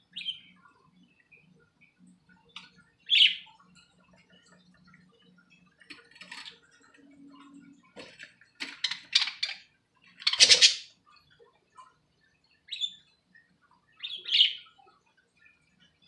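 Pet budgerigars chirping: short single calls every few seconds, a quick run of chirps a little past the middle, and one louder, rougher burst just after it.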